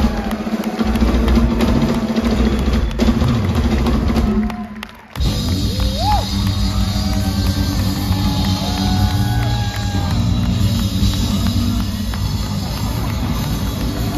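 Live band of electric bass, drum kit and electric guitar playing loudly together, kicking in sharply on the first beat. It stops for a moment about five seconds in and comes straight back in.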